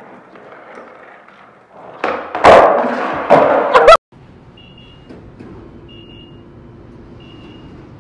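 Skateboard wheels rolling and the board clattering on a concrete floor, with several loud board impacts between about two and four seconds in as a trick is tried. Then the sound cuts to a fast-food restaurant with a low steady hum and a short high electronic beep repeating about every second and a half.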